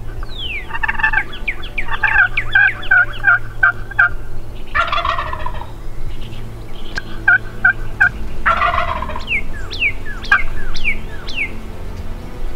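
A wild turkey gobbler gobbles twice, about five and eight seconds in, answering runs of quick, high hen-turkey yelps and cutts.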